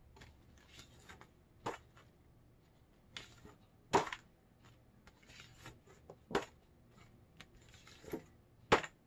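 Stack of plastic-sleeved color cards handled and flipped over one at a time: four sharp flaps about two and a half seconds apart, with lighter rustling between.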